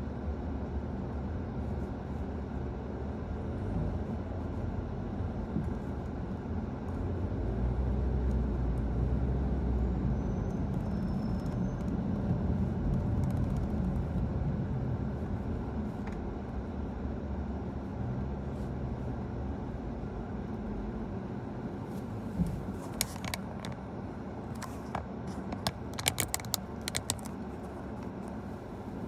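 Steady low engine and road rumble from inside a car driving in city traffic, swelling for a few seconds near the middle. A cluster of sharp clicks comes near the end.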